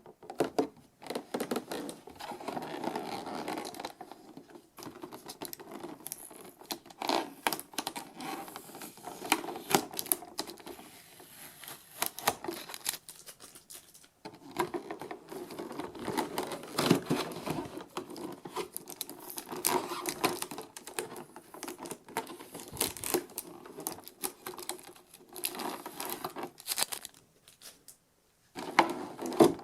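Packaging being handled during unboxing: plastic and cardboard crinkling and rustling, with irregular clicks and scratches and a few short pauses.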